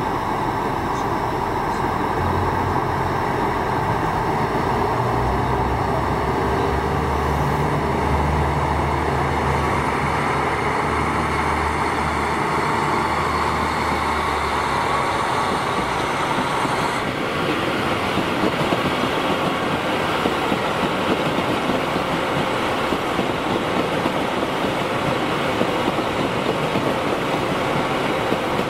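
JR Hokkaido 'Super Hokuto' diesel limited express approaching and passing: its diesel engines run under the noise of the wheels on the rails. The sound fills out about halfway through as the train draws level, and it stays steady as the cars go by.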